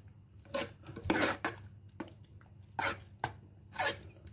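A metal spoon stirring thick ven pongal in an aluminium pressure cooker, scraping and knocking against the pot in short, irregular strokes about every half second.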